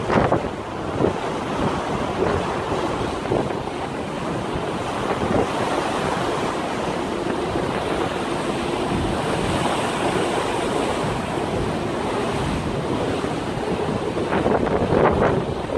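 Wind buffeting the microphone over the wash of choppy sea water, with heavy gusts at the start and again near the end.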